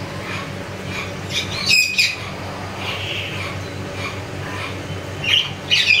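Hill myna giving loud, harsh squawks: one burst about one and a half seconds in and another near the end, with softer calls between. The uploader puts the bird's calling down to it being in breeding condition.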